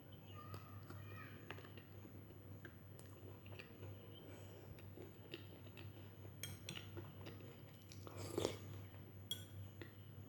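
A person eating close to the microphone: soft chewing with scattered small clicks, and one louder, noisier sound a little after eight seconds in.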